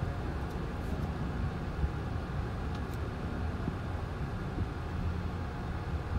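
A car's engine and road noise heard from inside the cabin as it rolls slowly along, a steady low rumble with a few faint clicks.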